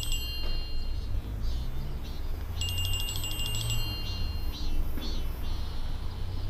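A mobile phone ringtone: a short, high, chiming electronic melody that finishes just after the start and plays again about two and a half seconds in, over a low steady hum.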